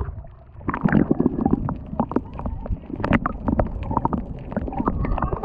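Muffled underwater sound picked up by a camera in its waterproof housing: low rumbling water movement with scattered clicks and bubbly gurgles.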